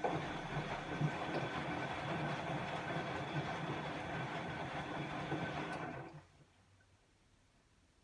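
Bosch WAE24162GB03 washing machine running mid-cycle: its motor and drum run with a steady rumbling hum, then stop about six seconds in.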